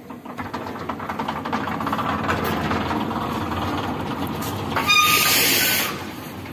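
Himalaya amusement ride's cars rolling around their track as the platform turns, a steady rumbling clatter that builds over the first couple of seconds. Near the end a loud hiss, about a second long, cuts off sharply.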